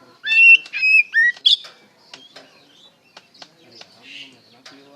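Oriental magpie-robin (kacer) singing: a loud phrase of clear whistled notes and short upward slurs in the first second and a half, followed by softer clicks and chattering notes.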